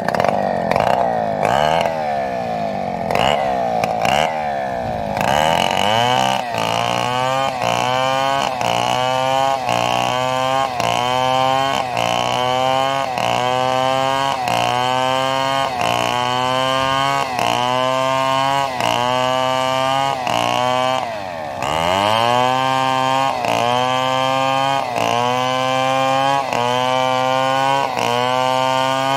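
Chainsaw engine running: revved up and down for the first few seconds, then held under load as it cuts into a fallen coconut trunk for coco lumber, its pitch rising and sagging in a regular rhythm about once a second. A little past two-thirds of the way in, the engine speed drops briefly and picks back up before the rhythm resumes.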